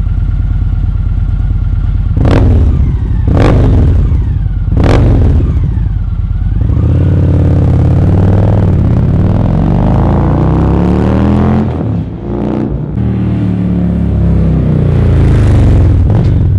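Victory bagger's V-twin engine through Bassani DNT three-step baffled slip-on mufflers. It idles with three quick throttle blips, then revs and pulls away, the engine note rising, dropping briefly near the middle, then rising again near the end.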